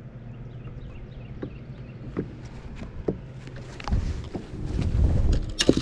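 Footsteps and low thumps of someone moving about in flip-flops on a bass boat's carpeted front deck, starting about four seconds in and ending with a sharp knock. Before that there is only a low steady hum with a few light clicks.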